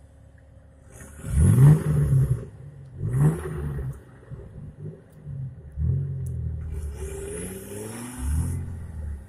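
An off-road 4x4's engine revs in repeated bursts, its pitch rising with each surge, as it drives through deep mud. The revving starts about a second in, and the first burst is the loudest.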